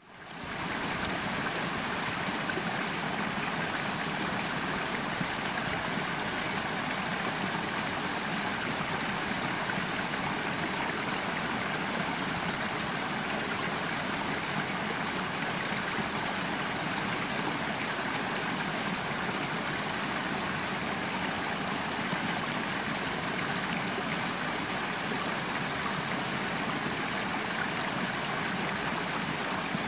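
Small rocky creek cascading over a series of little drops: a steady rushing and splashing of running water, fading in over the first second.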